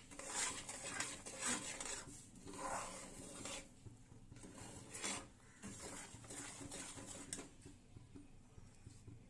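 Metal spatula stirring and scraping a thickening semolina-and-sugar-syrup mixture around a metal pan in irregular rough strokes, louder in the first few seconds and softer after.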